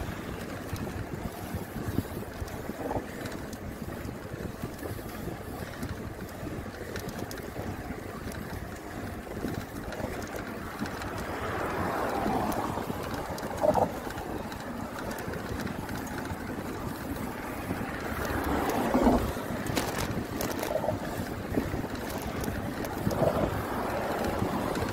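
Wind buffeting the microphone of a camera riding on a moving bicycle, a steady rush with a few louder gusts along the way.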